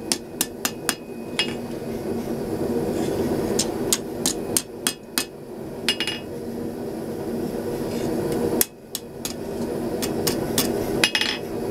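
Hand hammer striking red-hot steel on an anvil in short bursts of sharp blows with pauses between them, shaping the curled end of a hand-forged steel flint striker held in tongs. A steady low hum runs underneath.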